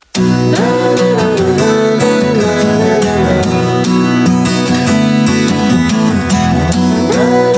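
Background music led by plucked and strummed acoustic guitar, with a melody gliding up and down over it. It starts right after a split-second gap.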